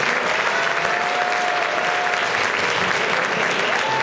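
Audience applauding steadily, with a drawn-out call from the crowd rising above the clapping twice.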